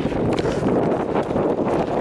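Trophy truck engine noise as a race truck passes at speed, heard as a loud, rough roar mixed with wind buffeting on the microphone.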